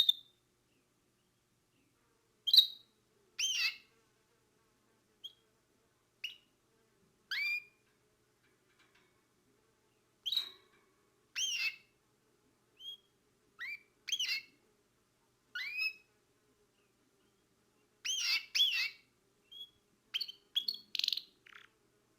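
Canary giving single chirps: short calls that sweep down in pitch, one every second or two, with a quicker run of calls near the end.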